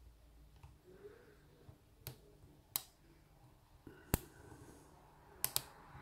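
Sharp, sparse metallic clicks of a hook pick working the pins of a lock cylinder under a tension wrench: single clicks about two, three and four seconds in, then a quick pair near the end.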